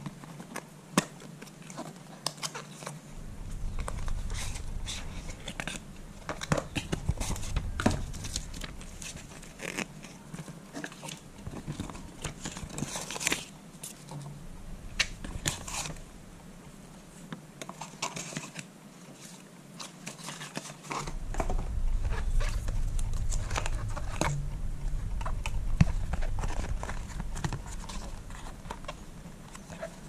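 Paper-and-cardboard packaging of an Apple power adapter being opened and handled by hand: box flaps, paper inserts and a paper tray crinkling, rustling and clicking in short irregular bursts. A low rumble comes and goes underneath, in two long stretches.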